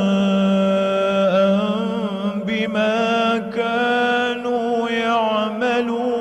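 A solo male qari reciting the Quran in melodic tajweed style, holding long ornamented notes broken by short pauses at the consonants.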